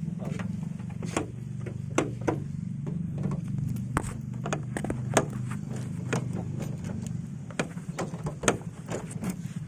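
Daihatsu van's engine idling with a steady low hum, while the van's door handle and latch are worked over and over in repeated clicks and knocks as the door refuses to open. The louder knocks come about two, five and eight and a half seconds in.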